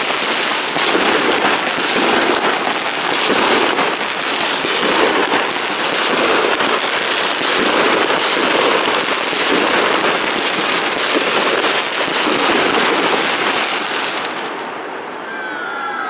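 Aerial fireworks going off in a dense barrage: many quick bangs over a steady crackle from the bursting shells. The barrage thins out and fades about fourteen seconds in.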